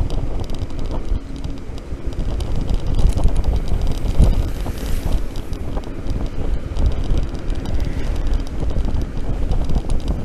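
Wind buffeting the microphone of a rider moving along on an electric scooter, a dense, gusty low rumble with road and traffic noise under it.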